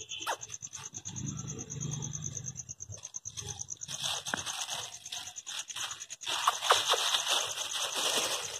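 A domestic cat growls low for a second or so near the start. Then, from about four seconds in, a crumpled foil-plastic food wrapper crinkles and crackles as a cat pushes its head into it and eats.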